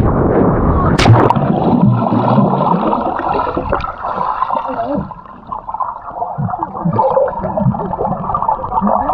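Action camera under water: muffled bubbling and gurgling water, with a sharp splash-like impact about a second in.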